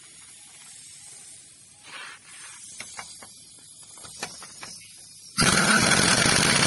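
Pneumatic impact wrench on a wheel lug nut, set to a lower torque for tightening: near the end it fires in one loud burst of just over a second, rapid hammering under a hiss of exhaust air. Before that, faint hiss and a few light clicks.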